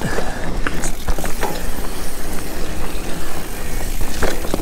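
Mountain bike rolling over a dirt singletrack, its tyres running on packed dirt and leaf litter, with the bike rattling and clicking sharply over bumps and roots. A steady rumble of wind on the microphone runs underneath.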